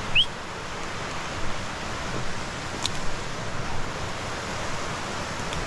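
Steady rushing of a small woodland stream, with one short rising chirp just after the start.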